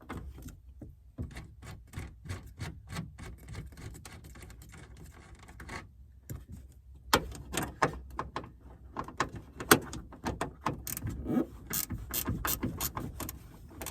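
Hand socket ratchet clicking in quick runs as it backs off the taillight mounting nuts, the clicks getting louder and closer together about halfway through.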